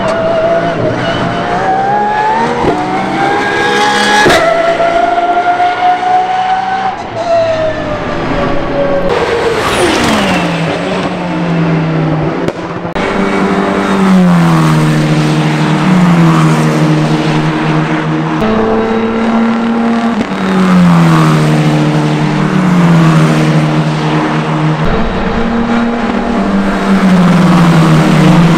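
Pagani Huayra R Evo's naturally aspirated V12 racing engine accelerating hard through quick upshifts, its note rising and then falling away as the car goes by. About thirteen seconds in, Tatuus F4 T-021 single-seaters' four-cylinder turbo engines take over, their note dropping in repeated steps as the cars pass and change down.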